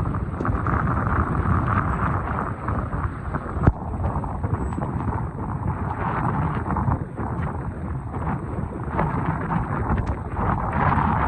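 Strong nor'easter wind gusting against the microphone: a low rushing noise that rises and falls with the gusts. A single sharp knock sounds a few seconds in.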